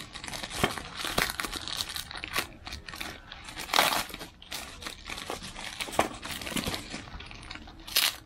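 Bubble-wrap packaging and clear packing tape crinkling as hands pull and peel them open, in irregular crackles with louder bursts about four seconds in and near the end.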